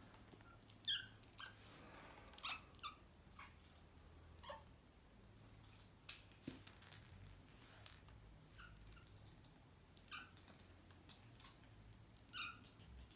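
Faint, short kitten mews, repeated every second or two. There is a brief scratchy noise about six to eight seconds in.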